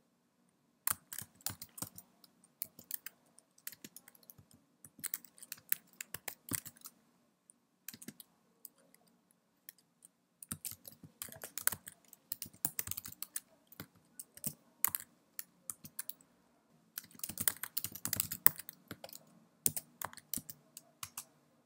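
Typing on a computer keyboard: quick runs of key clicks in several bursts, with short pauses between them, as a Terminal command is keyed in.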